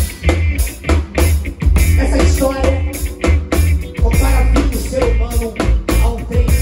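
Live band music heard as stage sound: a Waldman Turbo 2.0 electric bass playing a heavy, steady low line under a drum kit keeping a regular beat, with other instruments in the middle range.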